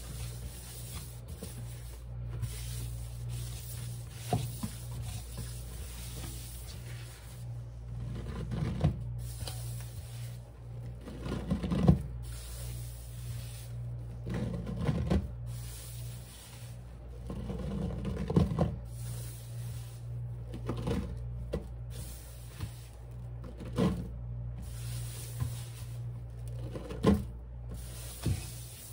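Hands working cleaning powder, giving short bursts of rubbing and crunching, about eight in all, the loudest a little before the midpoint, over a steady low hum.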